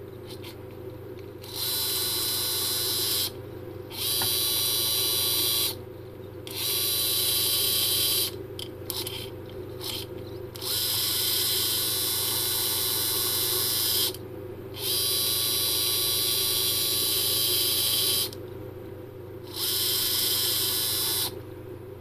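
ASME-MR high-torque 360-degree servo, a brushed DC motor driving a metal gearbox, running in six separate bursts of one to three and a half seconds as the RC transmitter stick is moved, stopping between runs. A low steady hum sits underneath, with a few short clicks around the middle.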